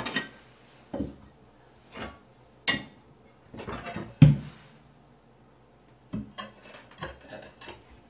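Hard floor tiles clacking and scraping against each other as they are handled and set down: a dozen or so separate knocks and clinks, the loudest about four seconds in, then a run of lighter clicks near the end.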